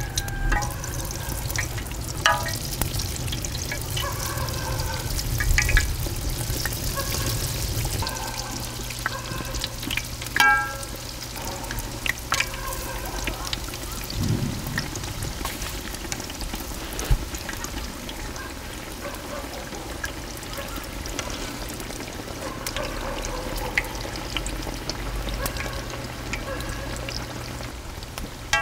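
Kkwabaegi (twisted dough sticks) deep-frying in hot oil in a cast-iron cauldron: a steady bubbling sizzle, with a low steady rumble underneath and a few short sharp clinks.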